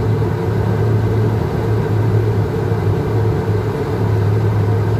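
Steady low drone inside the cockpit of a Learjet 35 on final approach, from its twin turbofan engines and the air rushing past.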